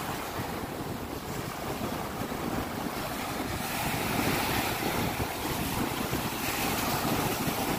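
Small sea waves breaking and washing on a sandy beach, a steady surf with gentle swells in loudness, and wind rumbling on the microphone.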